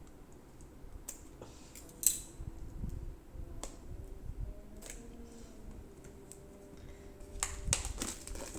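Packaging being handled and opened by hand: scattered sharp clicks, snaps and scrapes, the loudest about two seconds in and a quick cluster near the end.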